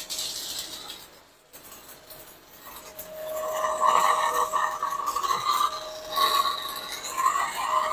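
Stick (SMAW) welding arc crackling and hissing as a rod electrode burns along a steel pipe joint. A steady high hum runs beneath it, and the sound gets louder about three seconds in.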